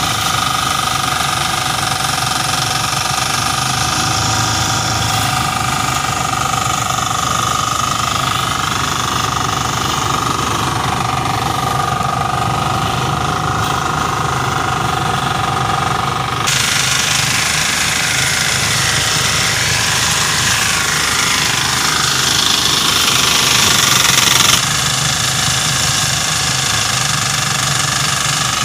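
Portable rice thresher running steadily, driven by a small single-cylinder diesel engine, with a fast even chugging under a steady whine from the spinning drum. A louder rushing hiss joins for several seconds past the middle and then stops abruptly.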